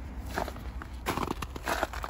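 Footsteps on snowy, slushy pavement: three steps.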